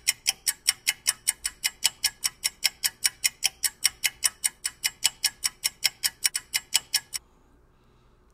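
Fast, even ticking of a clock-style timer sound effect, about four ticks a second, that stops abruptly about seven seconds in.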